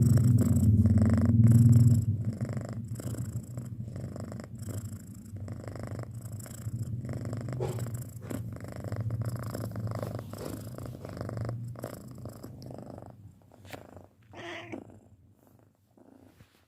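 Six-month-old domestic cat purring, loud for the first couple of seconds, then softer and fading out. A brief higher-pitched sound comes near the end.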